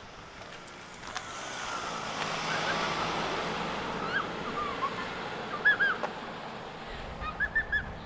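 A vehicle passing, a hiss that swells and fades over several seconds, while a small bird chirps: a few short arching chirps, the loudest pair a little past the middle and a quick run of four near the end.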